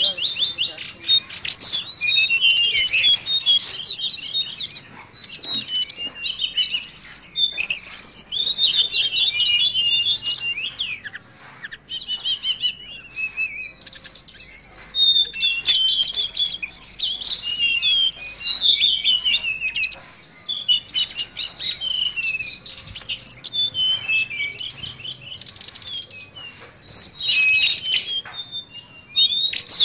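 Caged tledekan laut, a blue flycatcher, singing a fast, chattering song of high twittering and trilling phrases, with brief pauses about a third and two-thirds of the way through.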